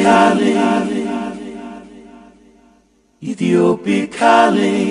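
Sung a cappella vocal jingle: a short held vocal phrase that rings on and fades out over about three seconds, then starts again loudly a little past halfway.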